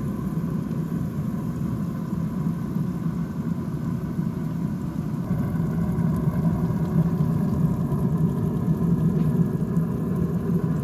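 Steady low mechanical hum of a Pit Boss 456D pellet grill's fan running, with a faint steady whine above it.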